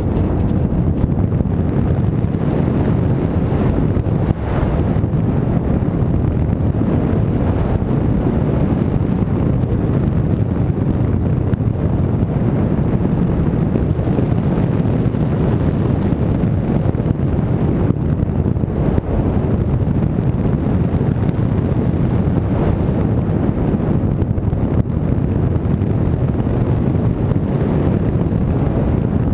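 Steady wind noise buffeting the microphone: a low, even rumble with no clear engine or motor tone.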